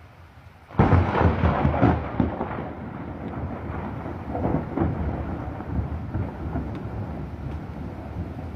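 A thunderclap breaks suddenly about a second in, then rolls on as rumbling thunder that slowly dies down, with a second swell a few seconds later, over steady rain.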